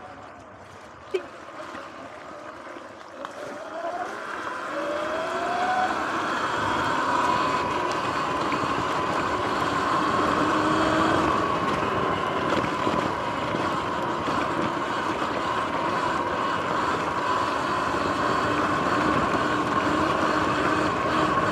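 Sur-Ron X electric dirt bike's motor whine rising in pitch as the bike accelerates, then holding a steady whine at speed over the rush of tyres on a dirt track. A single sharp knock about a second in.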